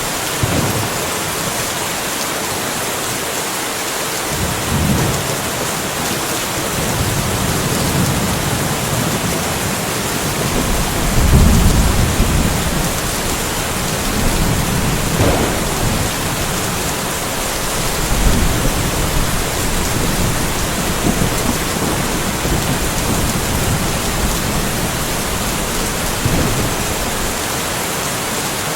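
Steady rain falling, with rolling thunder rumbling low several times, the loudest roll about eleven seconds in.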